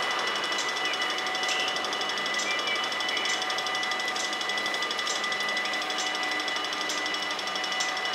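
Electric warning bells of a Dutch automatic half-barrier level crossing ringing rapidly and steadily, signalling that the crossing is closed for an approaching train.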